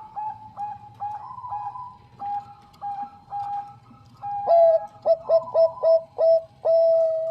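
Zebra dove (perkutut bangkok strain) cooing: a run of short notes, about three a second. About halfway it switches to a louder, lower series of quick staccato coos that ends in one long held note.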